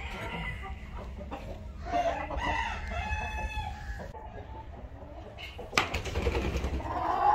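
Chickens calling: a rooster crows about three seconds in, and hens cluck around it. A sharp knock comes near the end, under a steady low rumble.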